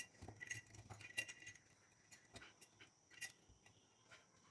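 Quiet workshop with a few faint, scattered clicks and light metallic taps, about a second apart at first and then thinning out.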